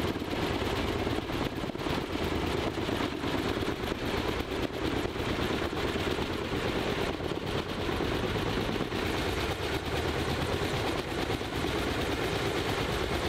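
Helicopter rotor blades beating in a rapid, steady chop overhead.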